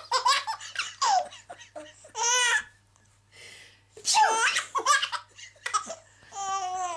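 A baby boy laughing in repeated peals of giggles and belly laughs, set off by his mother's sneezes. The laughter comes in several bursts with short pauses between them.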